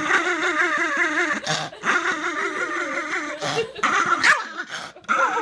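A dog vocalizing in a long, warbling growl-whine, its pitch wavering rapidly up and down, broken by a few short pauses.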